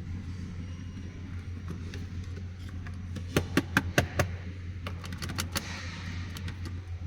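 Plastic dashboard air-conditioning vent clicking and rattling as it is shaken loose from its retaining hook: a quick run of about five sharp clicks about halfway through, then a few lighter ticks.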